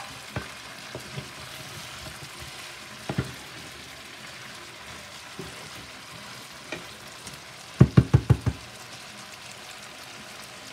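Chicken drumsticks and carrots sizzling in sauce in an electric skillet, a steady hiss. A single knock comes about three seconds in, and a quick run of about five knocks near eight seconds in is the loudest sound.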